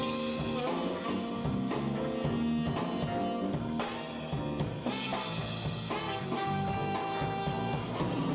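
Jazz quartet playing live, drum kit and bass under a melody with long held notes.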